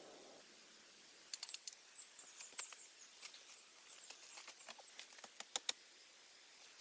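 Dry leaves crackling and rustling in scattered clicks, with two sharper snaps about five and a half seconds in.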